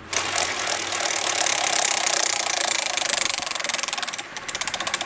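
Prize wheel spinning: rapid, even ticking that slows and spaces out near the end as the wheel winds down.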